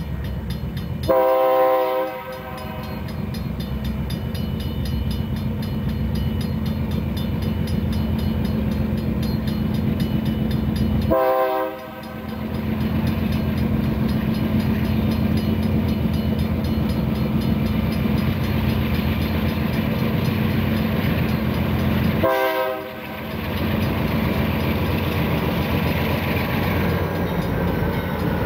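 Diesel freight locomotives running under power as they lead a train in, their engines a steady low rumble. The air horn sounds three short blasts, about ten seconds apart.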